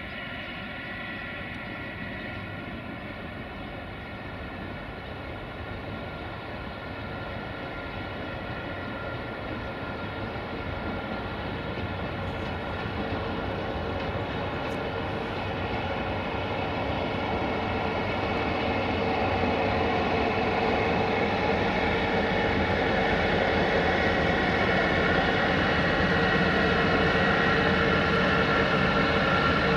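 CFR class 060-EA1 electric locomotive hauling a passenger train in at low speed, its steady electric whine and the rumble of the train growing louder as it draws near and passes close by.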